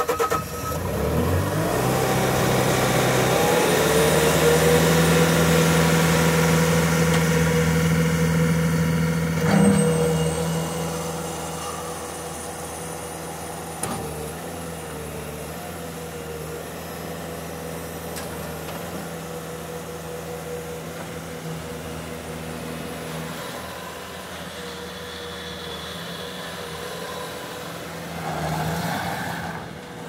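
2014 Bobcat S510 skid steer's diesel engine just after starting, its pitch climbing over the first few seconds as it revs up. It runs fast and loud, gives a single clunk about ten seconds in, then drops to a quieter steady run while the loader works.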